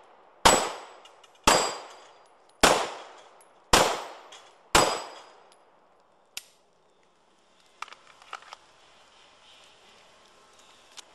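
Five pistol shots about a second apart, each hit ringing briefly off a steel plate target. About a second and a half after the last shot comes a single sharp click, then a few faint handling clicks.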